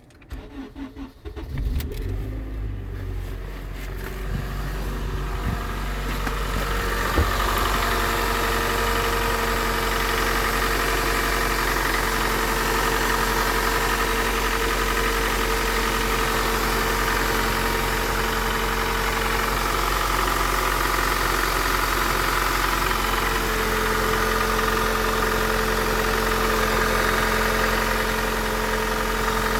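Eighth-generation Honda Accord engine starting from cold and catching within the first couple of seconds, then idling steadily. It carries the cold-start knock the owner complains of, which he says lessens as the engine warms but is still heard at 2,000 to 3,000 rpm.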